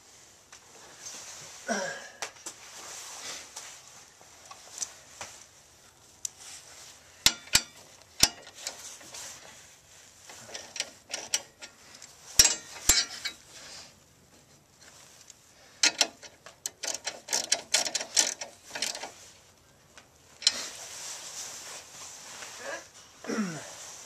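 Metal parts of a Nelson automatic horse waterer being handled and adjusted: scattered sharp clicks and clinks with stretches of scraping and rubbing, including a few loud clicks about seven and twelve seconds in.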